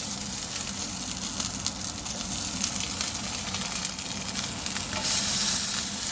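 Salmon fillet frying in a pan: a steady sizzling hiss with scattered crackles, getting louder about five seconds in.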